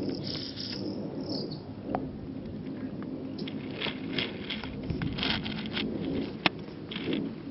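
Camera lens focus and zoom motor making a grainy, scratchy noise in short repeated spells as it drives back and forth, over a low steady rumble, with one sharp click about six and a half seconds in.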